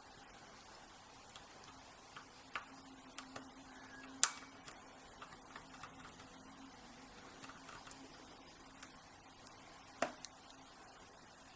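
Scattered small metallic clicks and ticks of a Sparrows Mantis tubular pick working the pins of a tubular cam lock. There is a sharper click about four seconds in and another about ten seconds in.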